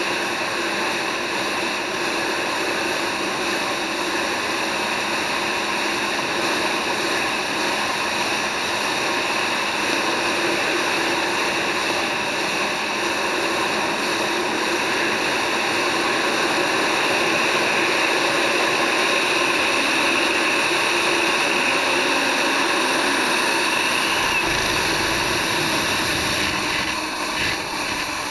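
Jet ski running at speed, a steady mix of engine and jet-pump noise with rushing water spray and wind, alongside a centre-console boat under way.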